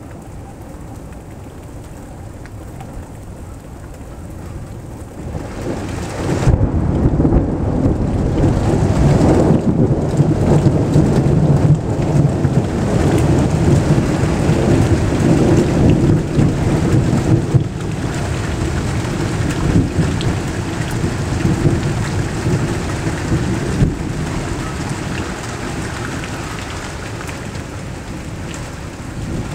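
Rain falling steadily through a thunderstorm, with a long roll of thunder that builds about five seconds in. The thunder rumbles at its loudest for roughly ten seconds, then slowly dies away under the rain.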